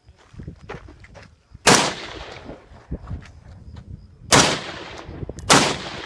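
Three rifle shots: one, then two more close together a few seconds later, each trailing off in a short echo.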